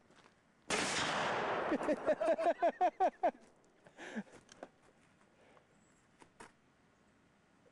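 A single handgun shot about a second in, its blast hanging loud for about a second, followed by a person's voice in quick repeated bursts.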